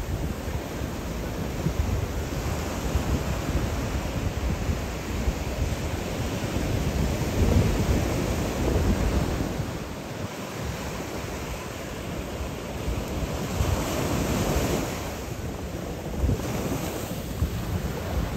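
Surf washing onto a sandy beach, with wind buffeting the microphone. The wash swells louder about halfway in and again later.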